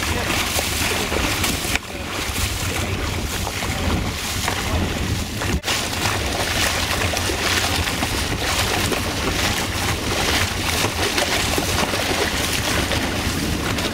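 Wind buffeting the microphone over the rush and splash of water as a dragon boat crew paddles hard alongside.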